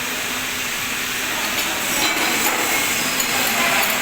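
Light metal tapping and clinking of hand tools on lathe parts, a few knocks over a steady background of machine noise.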